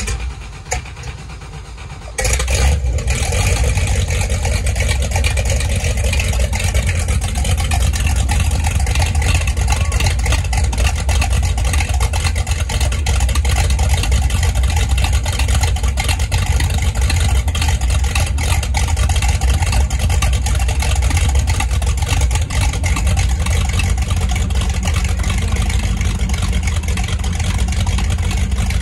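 Chevrolet Gen 6 big-block V8 marine engine, with a roller cam and through-transom straight-through exhaust, catching about two seconds in. It then runs loud and steady with a deep rumble while being run on a garden-hose flush out of the water.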